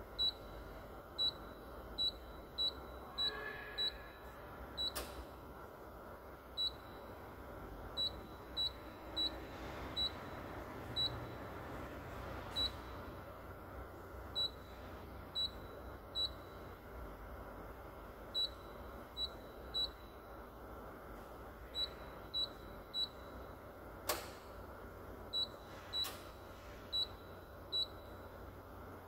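Toyota 6-FB forklift dashboard display beeping at each button press: short, high single beeps at irregular intervals, often about a second apart, as the menus are stepped through. A few brief clicks are scattered among them.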